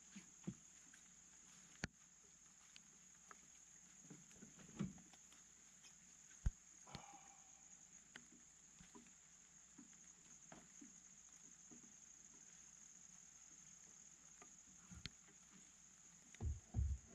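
Steady high-pitched insect chirring in the background, with a few scattered light clicks and knocks. A cluster of heavier thumps comes near the end as the plastic water tank is lifted and set into the bus.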